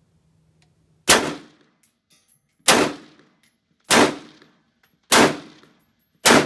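AR-15 rifle fired semi-automatically: five single shots, roughly one every second and a quarter, each a sharp report that dies away quickly.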